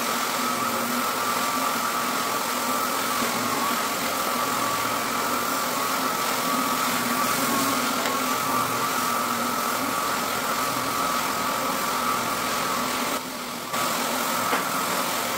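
Electric rotary floor machine running steadily, a drone with a high whine, as used for screening and cleaning a hardwood floor. It drops out briefly near the end.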